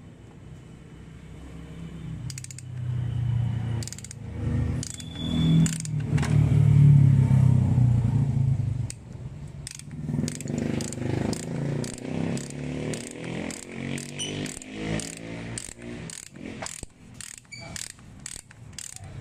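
Ratchet wrench turning a splined bottom-bracket removal tool to unscrew a bicycle's cartridge bottom bracket from the frame. For the first several seconds there is a loud low grinding; after that comes a long run of sharp ratchet clicks to the end.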